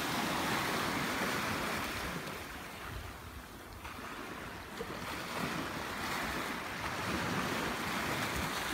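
Small waves washing in over flat rocks and pebbles at the shoreline. The surf swells, eases a few seconds in, then builds again.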